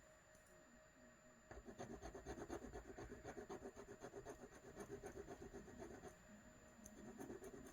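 A metal chain being rubbed quickly back and forth on a jeweller's testing stone, a fast run of faint scratchy strokes starting about a second and a half in and tailing off near the end. It lays down a streak of metal for a silver acid test.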